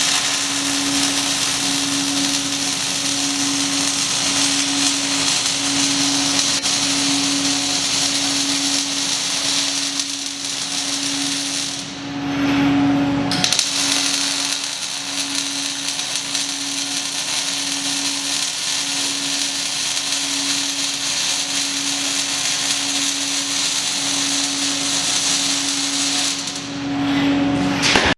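Robotic MIG welding arc hissing and crackling steadily, breaking off for about a second and a half about twelve seconds in and again near the end, between welds. A steady low hum runs underneath throughout.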